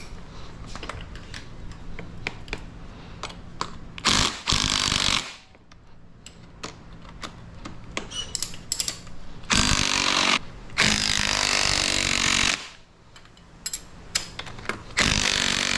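Impact gun hammering in four bursts of one to two seconds each, running the handlebar clamp bolts down tight, with light clicks of tool handling between the bursts.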